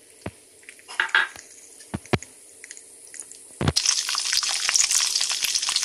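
Raw peanuts frying in hot oil in a steel pan: a few light clicks and taps at first, then about two-thirds of the way in a knock and steady, loud sizzling.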